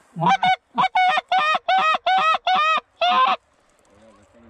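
Goose honks: a fast, even run of about a dozen loud honks, about four a second, that stops a little over three seconds in.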